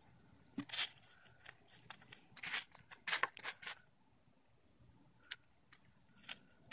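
Easter Egger hen scratching and pecking through dry fallen leaves and soil: irregular bursts of rustling, crinkling leaf litter, heaviest in the first half, then quieter with a couple of sharp pecking clicks.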